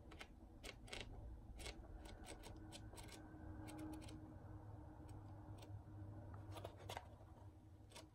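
Pages of a paper journal being flipped through by hand: faint, irregular paper flicks and rustles.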